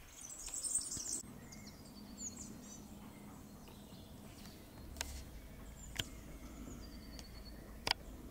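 Rural outdoor ambience of small birds chirping and singing on and off, busiest just under a second in, with a brief high trill later. A few sharp clicks stand out in the second half.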